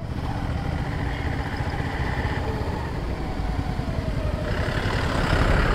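Motorcycle engine running as the bike rides at low speed, heard from the rider's seat, with a rush of noise that builds about four and a half seconds in and then eases.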